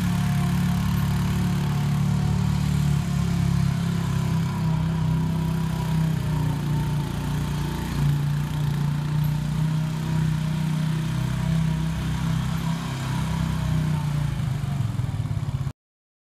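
An engine running steadily at a constant speed, cutting off abruptly near the end.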